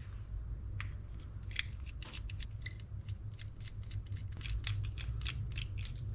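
Light metal clicks and ticks, a few a second, of a small screwdriver backing screws out of a Shimano Stella FE spinning reel's body, over a steady low hum.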